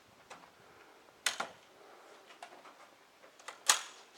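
Two sharp rimfire rifle shots about two and a half seconds apart, the second louder, with a few fainter clicks between them.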